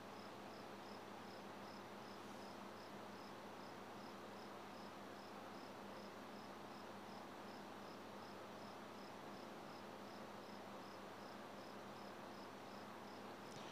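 Near silence: faint steady background hiss with a faint high chirp repeating about twice a second.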